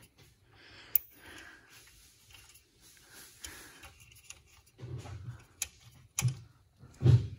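Scattered light metallic clicks and scraping of a hand tool working a small pin and nut loose on the rear brake arm of a small ATV, with a sharp click about a second in and a few louder knocks near the end.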